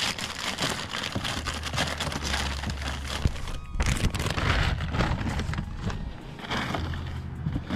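Steady crinkling and rustling with many small crackles, as of packaging being handled, over a low hum.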